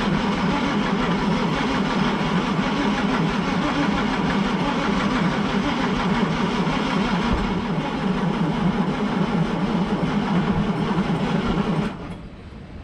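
Starter cranking a Detroit diesel truck engine steadily without it firing, then cutting off abruptly near the end. It won't catch because the tank feeding the fuel pump has run dry.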